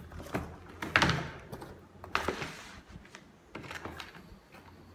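Cardboard box and packaging being handled on a table: a sharp knock about a second in, the loudest, then a short scraping rustle and a few lighter knocks.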